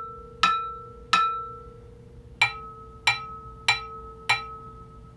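A wooden dowel tapping Sony PS-X800 turntable platters, each tap ringing with a metallic tone that dies away. Two taps land on one platter, then four quicker taps on another that rings at a slightly different pitch. This compares the resonance of the stock platter with that of a stiffened, damped modified one.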